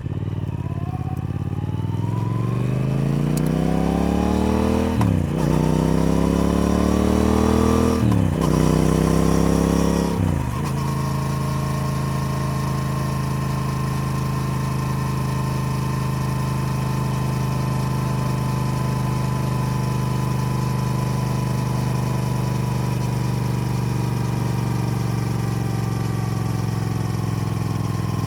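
Triumph Speed Twin's parallel-twin engine pulling up through the gears: its pitch climbs and drops sharply at three quick upshifts in the first ten seconds. It then holds a steady engine speed while cruising.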